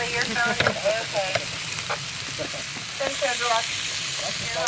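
Beef steaks sizzling on the hot plate of a portable grill, a steady hiss, with a few sharp clicks of metal tongs as the steaks are turned.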